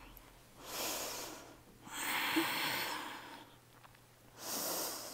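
A woman breathing slowly and audibly while holding a yoga pose: three long breaths in and out, each lasting a second or more, the middle one the longest and loudest.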